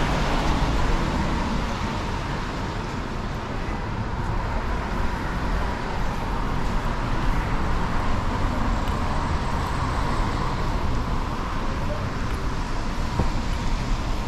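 Steady city street traffic on rain-wet roads: passing cars' engines and tyre noise in a continuous wash, swelling a little midway.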